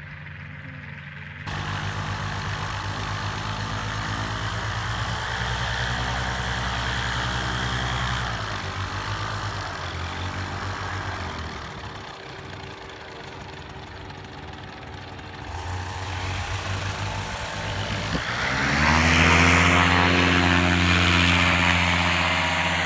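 Paramotor engines running with the propellers turning, mostly at a steady idle. About 18 seconds in, one engine revs up and is held at high throttle for the take-off run, the loudest part.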